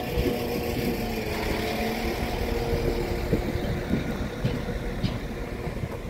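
Northern Class 195 diesel multiple unit's underfloor diesel engines running under power as the train moves along the platform. A steady low drone with humming tones that shift in pitch now and then, easing off slightly near the end.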